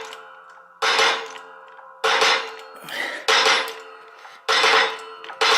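Five sharp metallic clanks, about one every 1.2 s, each ringing briefly before it fades, from a 12-ton hydraulic shop press being pumped to push a wrist pin through a connecting rod.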